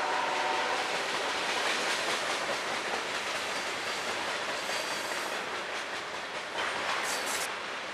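A freight train's covered hopper cars rolling past, a steady rumble and clatter of steel wheels on rail. The last of a locomotive horn note cuts off about a second in, and a brief high-pitched squeal comes near the end.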